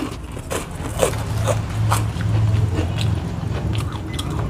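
Crunching and chewing of a krupuk (puffed cracker) close to the microphone, with many short crisp crackles and wet mouth sounds. A low hum runs under the chewing and is strongest a second or two in.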